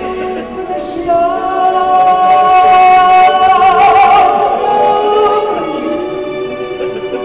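Music with a singer holding one long note with vibrato. It swells about a second in, is loudest around the middle and fades toward the end, with other sustained notes underneath.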